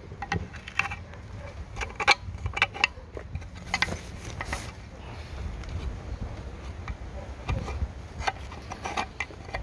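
Tool scraping and clinking inside a 2010 Mitsubishi Pajero diesel intake manifold, digging out thick caked soot from the EGR mixed with oil vapour; irregular scrapes and knocks.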